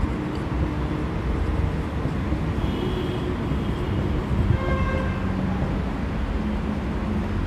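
Steady low background rumble, with a few faint, brief high-pitched tones about three and five seconds in.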